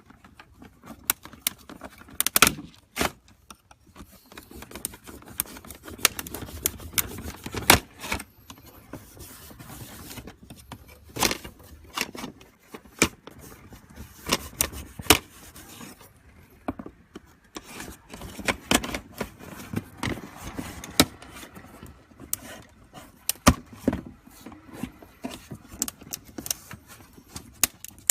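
Hand tools clicking, knocking and scraping on a 2015-2017 Mustang GT's plastic hood vent as it is taken off and separated from its backing plate: irregular sharp clicks with stretches of scraping.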